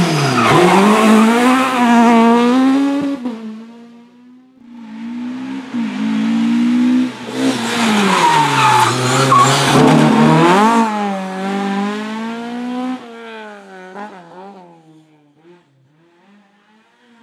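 Rally car engines revving hard up and down through the gears as the cars are driven flat out past the roadside, with tyre squeal. Loud for the first three seconds, then briefly quieter, then loud again for about six seconds before fading into the distance.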